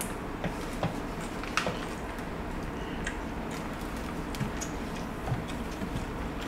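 Close-up eating sounds: scattered light clicks and crunches from chewing crispy fried galunggong fish and rice, and a metal fork and spoon tapping on the plate, over a steady low hum.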